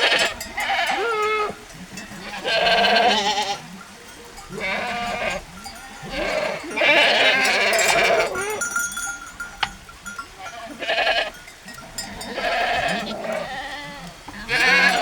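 Sheep bleating again and again, a call every second or two, each with a wavering pitch.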